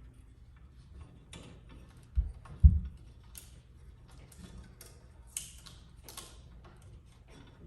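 Scattered small clicks and knocks of tools and engine parts being handled. Two dull thumps come a little over two seconds in, then a few sharper clicks.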